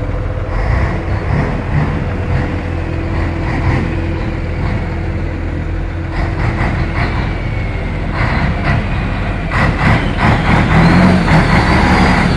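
A drag-racing truck's engine running while the truck is maneuvered for loading onto a transport ramp. About nine to ten seconds in it gets louder, and a high whine rises and falls.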